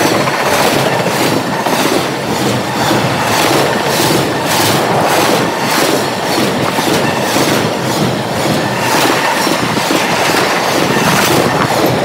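Double-stack intermodal freight train's well cars rolling past close by, steel wheels clacking over the rail joints in a steady rhythm of a few beats a second.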